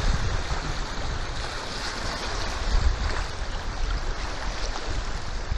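Wind noise on the microphone over rushing, splashing river water along the side of a moving inflatable boat.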